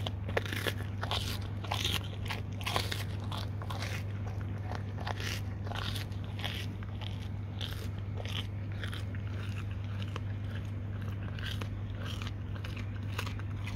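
Dog chewing and crunching a stuffed cigar pastry roll: crisp crunches come several times a second, thickest in the first three seconds, then sparser.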